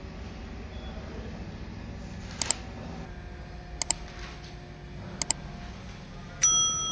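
Subscribe-button animation sound effects: three sharp double mouse clicks about a second and a half apart, then a bright bell-like chime near the end that rings on and fades, over a faint steady hum.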